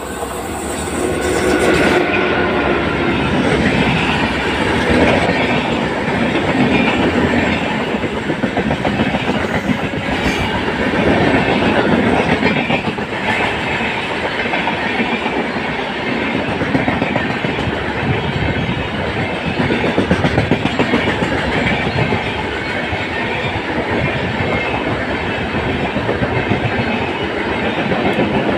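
WAP-4 electric locomotive and its LHB coaches passing at high speed. The sound swells as the locomotive comes by in the first couple of seconds, then holds as a steady rush of wheels with clickety-clack over the rail joints as the coaches run past.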